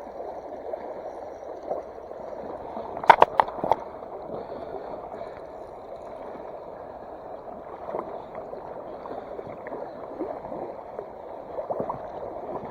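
Stream water running and gurgling steadily, with a quick cluster of sharp splashes or knocks about three seconds in.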